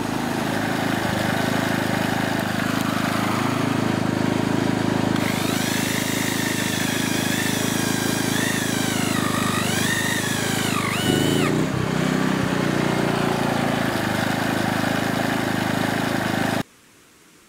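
A motor-driven machine running steadily with a whining tone that rises and falls for several seconds midway, then cuts off suddenly near the end.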